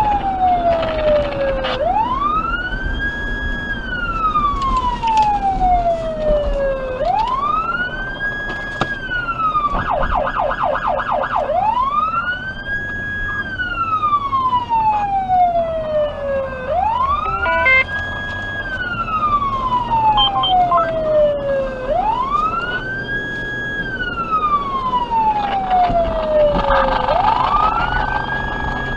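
Federal Signal Touchmaster Delta electronic siren sounding a wail through its dual 100-watt speakers: each cycle rises quickly, holds briefly at the top and falls slowly, repeating about every five seconds. About ten seconds in it switches for a second and a half to a fast yelp of rapid sweeps, then goes back to the wail.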